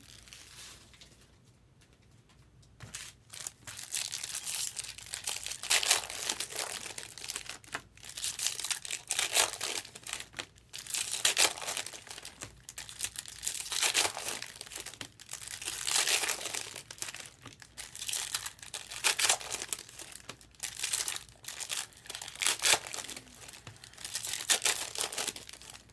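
Plastic wrapping crinkling and tearing in irregular bursts as sealed trading-card boxes and packs are opened by hand. It starts about three seconds in, after a short lull.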